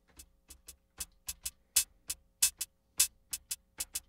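Closed hi-hat voice of an Akai Rhythm Wolf analog drum machine: a quick, uneven run of short, crisp ticks, some hits much louder than others.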